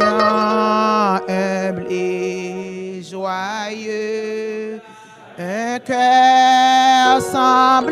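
Worship singers at microphones singing a slow hymn, with long held notes that slide in pitch over a steady sustained accompaniment. The singing breaks off briefly about five seconds in, then comes back louder.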